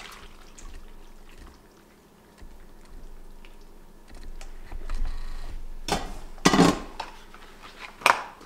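Sauced bowtie pasta sliding wetly out of an upturned stainless steel Instant Pot inner pot into a serving dish, followed by a few sharp metal knocks from the pot, the loudest about six and a half seconds in.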